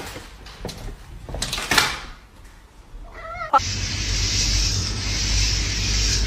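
A short, wavering cat meow about three seconds in, followed at once by a loud, steady rushing noise that starts suddenly and continues.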